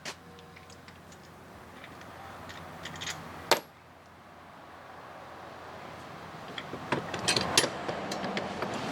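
Small metal clinks and knocks of hand tools and bolts, as a recoil starter is fitted to a small outboard motor. There is a sharp click about three and a half seconds in and a flurry of clicks near the end.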